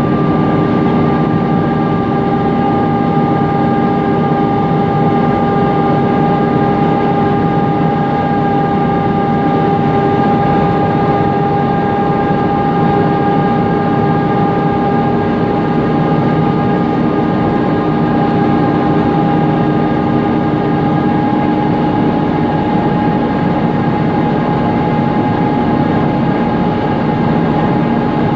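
Mercedes-Benz Conecto NGT city bus on the move with its noisy thermostatic engine-cooling fan running: a loud steady whine of several tones over the rumble of the CNG engine and road noise. The whine drifts slightly in pitch.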